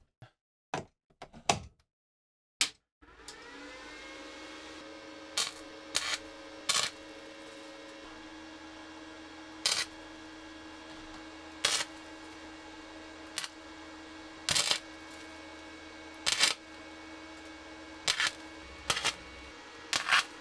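A few sharp clicks as a bar clamp is adjusted. About three seconds in, a MIG welder starts a steady hum. About eleven short crackling arc bursts follow as pits in the old bayonet's steel blade are filled with weld bead.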